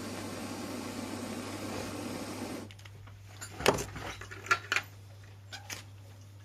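A steady noisy running sound cuts off abruptly a little over halfway in. It is followed by a few sharp clicks and knocks, like tools or parts being handled.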